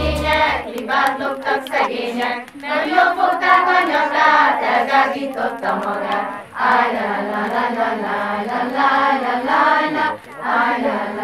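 A large group, mostly children, singing a song together in phrases with short breaks between them. A music track with a bass line cuts out just under a second in.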